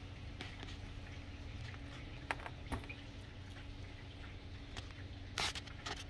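A few faint, sharp clicks of a hand wire stripper being worked on a short wire, with a louder brief snap about five and a half seconds in, over a steady low hum.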